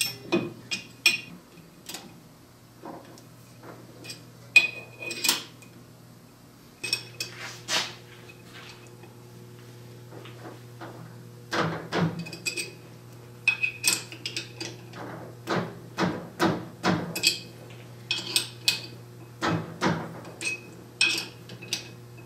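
Irregular metal clinks and taps from an Allen wrench, steel bolts and a steel fixture plate as the plate is bolted onto the lathe spindle adapter, some ringing briefly. The clinks come thickest in the second half. A steady low hum runs underneath.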